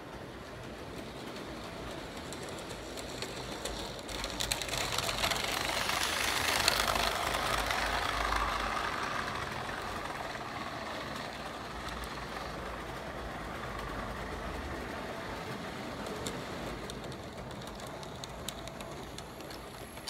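HO scale model train of boxcars and a caboose running along the layout's track past the microphone, its wheels rumbling and clicking on the rails. It builds over the first few seconds, is loudest about seven seconds in, then slowly fades.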